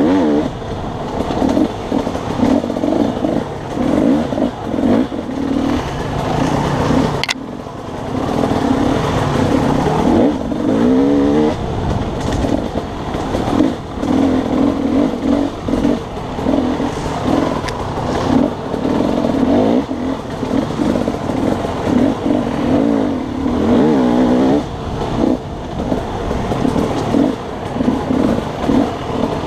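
Dirt bike engine heard from on the bike, revving up and falling back over and over as the throttle is opened and closed along a tight trail. A single sharp knock about seven seconds in.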